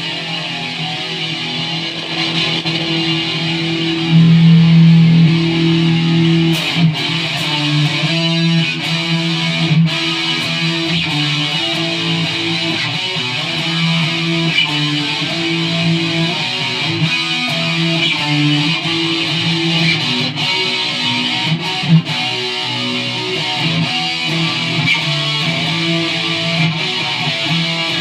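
Custom KH-1 electric guitar played with both pickups selected together, riffing in drop D tuning.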